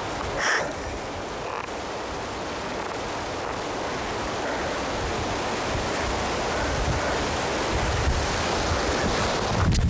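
Wind buffeting a clip-on microphone as a steady rushing noise, its low rumble growing stronger toward the end. A brief louder sound comes about half a second in.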